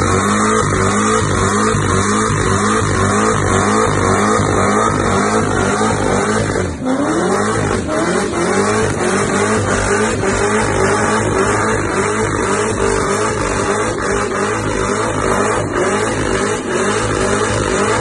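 Corvette's V8 held at high revs through a smoky burnout and donuts, the spinning rear tyres squealing on the pavement. From about seven seconds in the revs surge up again and again in quick repeated rises.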